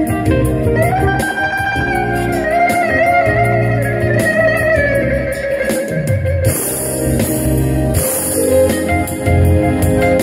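Funky instrumental duo: an electric bağlama plays an ornamented, wavering melody over a Yamaha Tyros 4 keyboard's backing of bass and drums.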